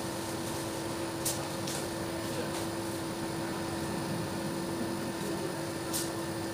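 Steady hum of a running wall-mounted split air conditioner, with one constant tone over a soft hiss. Two faint short clicks, about a second in and near the end.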